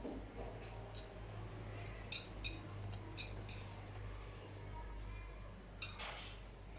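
Cake batter being mixed by hand in a bowl: quiet stirring with a few faint, light clicks of the utensil against the bowl, over a steady low hum.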